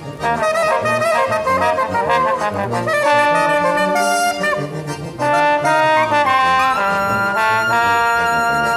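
A small wind band of saxophone, trumpet, clarinet and tuba with accordion plays a hymn in harmony. Quick-moving lines in the first three seconds give way to sustained chords that change every second or so over a pulsing bass, ending on a long held chord.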